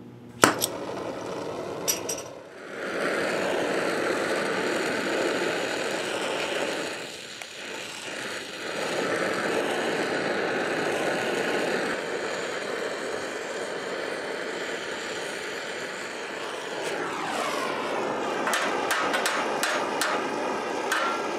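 Two sharp pops in the first two seconds, then an oxyacetylene torch flame hissing steadily while it heats a bent spot in a steel jeep bumper. From about 18 seconds in, a quick run of hammer blows on the red-hot steel, with a metallic ring.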